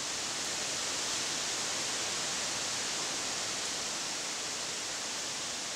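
Steady, even hiss of background noise, brightest in the high range, with no distinct knock, tone or other event.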